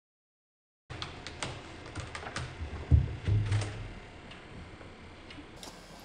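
Slowed-down taps and clicks from a cat scrambling about, with a heavy low thud about three seconds in and a few more thumps just after. About the first second is silent.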